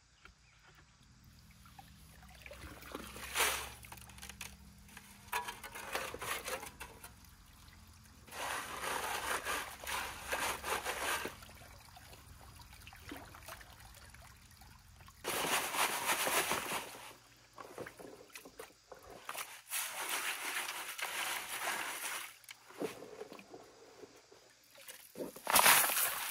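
Wet gravel and clay being shovelled from a flooded creek bed into a gold sieve standing in a tub of water: water sloshing, pouring and trickling in bursts every few seconds.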